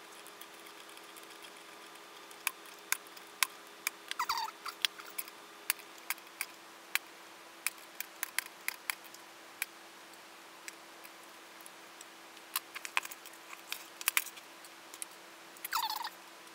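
Scattered clicks and knocks of tools and a metal amplifier chassis being handled on a workbench, with two short scraping slides, one about four seconds in and one near the end. A faint steady hum runs underneath.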